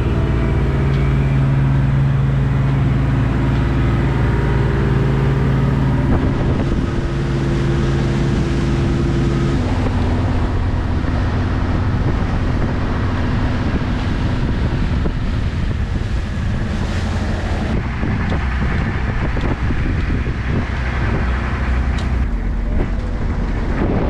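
Motor cruiser's engine running steadily while under way, with wind on the microphone. About ten seconds in, the steady engine note changes, and the sound turns to a noisier rush of wind and engine.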